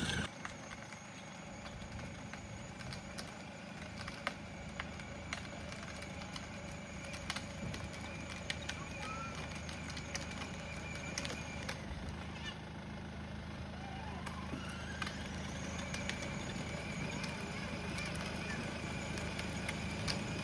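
Kids' electric ride-on car running, a steady low motor hum with a faint high whine and small clicks.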